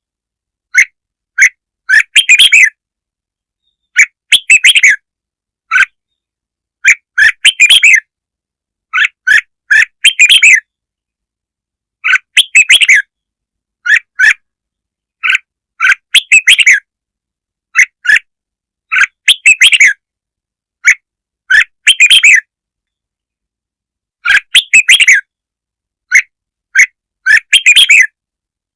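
Red-whiskered bulbul song used as a lure call: short, loud, chirpy phrases, singly or in quick clusters, repeated every one to two seconds with dead silence between them.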